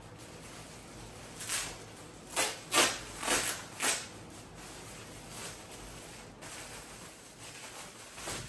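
Clear plastic garment bag crinkling as a sweater is unwrapped from it: a quick run of about five loud crinkles in the first half, then softer rustling.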